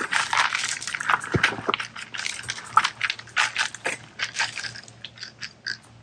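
A rake scraping and dragging through loose gravel and river rock: a quick run of crunching, clattering strokes that thin out over the last couple of seconds.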